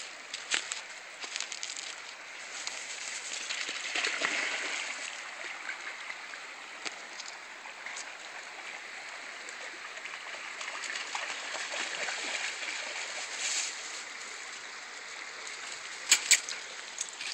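A dog wading and splashing through a shallow creek over the steady sound of running water, loudest about four seconds in. Two sharp snaps near the end.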